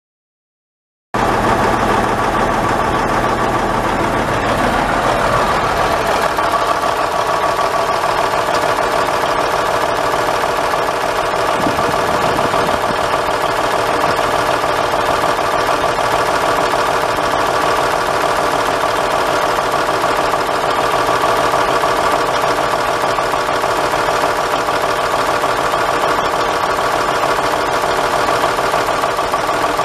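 Cummins N14 14-litre inline-six turbo diesel of a semi truck idling steadily. The sound cuts in abruptly about a second in, out of silence.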